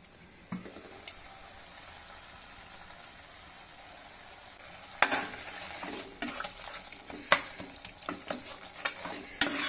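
Tomato masala sizzling steadily in oil in a pan. From about five seconds in, a steel spatula stirs it, scraping and clicking against the pan. The masala is at the stage where the oil is separating out.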